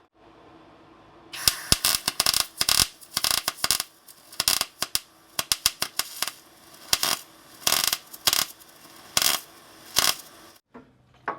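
Repeated short, harsh metallic bursts of metalwork on the torsion-bar rod, coming irregularly about once or twice a second.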